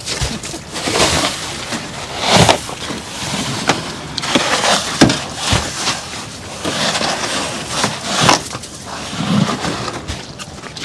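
Snow shovel scooping and tossing snow, making a series of irregular scrapes and crunches every second or two.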